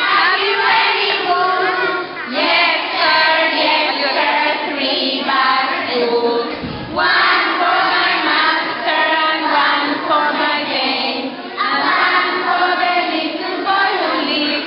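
A group of young children singing together, in phrases of a second or two with short breaks between them.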